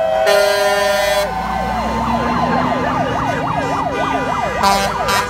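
A vehicle horn blasts for about a second, then a siren sweeps rapidly up and down, about two to three times a second, with another short horn blast near the end, over passing traffic.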